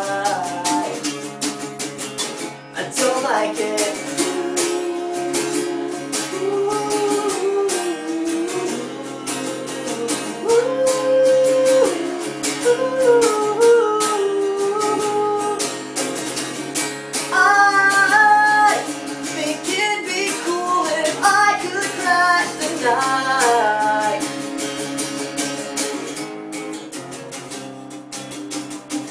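A man singing a punk song while strumming an acoustic guitar. The singing stops a few seconds before the end, leaving the strummed guitar on its own.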